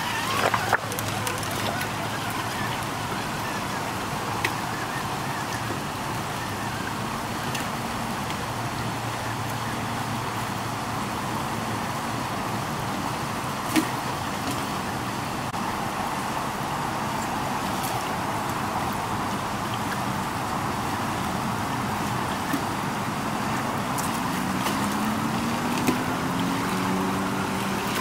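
Steady rush of a shallow stream running over rocks, with the whine of an RC rock crawler's electric motor and drivetrain as it drives through the water. The whine rises in pitch near the end, and a few sharp knocks come through.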